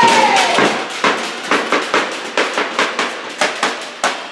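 Handball bouncing on a sports-hall floor during play: a run of sharp, echoing knocks, about two to three a second and uneven, growing fainter toward the end, with a brief shout at the start.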